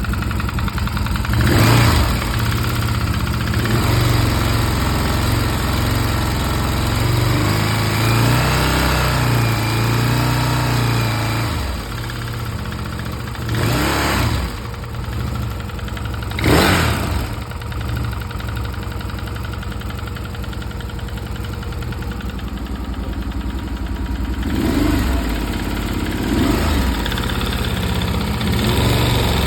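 Stels Guepard 650G motorcycle engine idling with a knock, the fault being demonstrated. The throttle is blipped briefly about three times, with smaller blips near the end.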